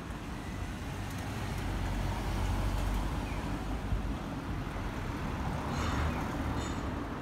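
Street traffic: road vehicles running and passing, including buses, heard as a steady low rumble that swells a couple of times.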